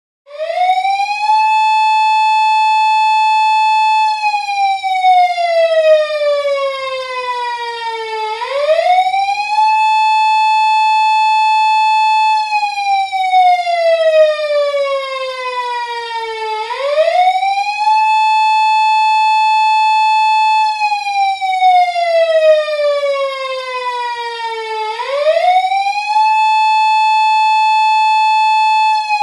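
Japanese police patrol car siren wailing in a repeating cycle about every eight seconds. Each cycle is a quick rise to a high steady tone, held for about three seconds, then a slow slide down over about four seconds before it rises again. It comes in just after the start and goes through about three and a half cycles.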